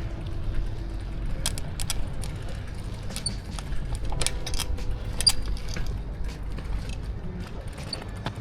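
Bicycle being ridden with the camera on a handlebar mount: scattered clicks, knocks and rattles over a steady low rumble.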